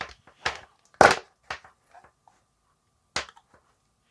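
Sharp plastic clicks and knocks, about five in all and loudest about a second in, as a hair dryer is handled and its attachment is fitted on.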